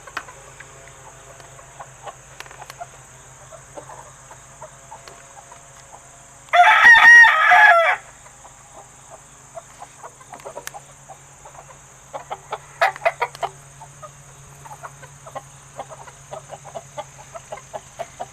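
A game rooster crows once, a loud call of about a second and a half, about a third of the way in, while chickens cluck in short calls around it.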